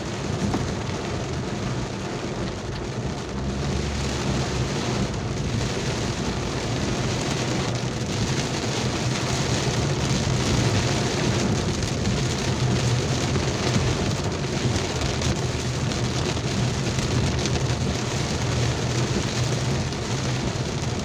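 Heavy rain pouring steadily as an even hiss, with a steady low rumble underneath.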